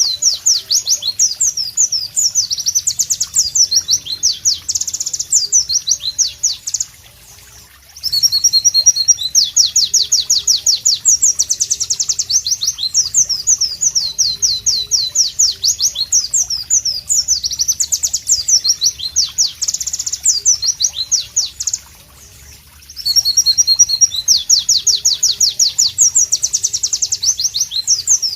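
White-eye (pleci) singing loudly: long runs of rapid, sharp, high chirping notes, each sweeping downward, broken by brief pauses about 7 and 22 seconds in.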